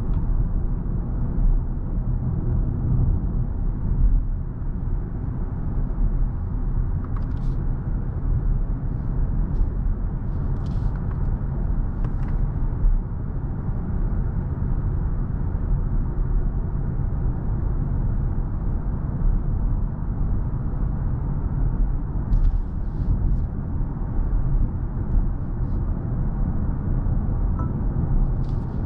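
Steady low road and tyre rumble heard inside the cabin of a BMW i7 electric sedan on the move, with no engine note. A few faint ticks come through now and then.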